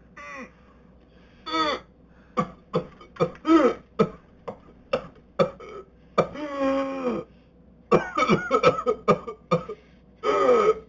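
A person coughing in a whooping cough (pertussis) fit. Strings of short, sharp coughs are broken by several longer pitched in-breaths that glide in pitch, the longest lasting about a second.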